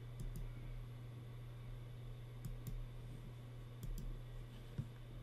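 Computer mouse clicking, a few quiet clicks in close pairs, over a steady low electrical hum.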